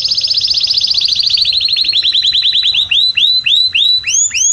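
Male domestic canary singing: a fast, high trill of rapidly repeated notes that slows and drops slightly in pitch, then breaks into slower swooping notes about three a second, with a higher pair of notes near the end.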